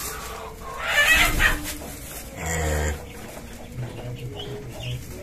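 A chicken clucking and squawking, loudest about a second in, followed by a short low-pitched call about half a second long.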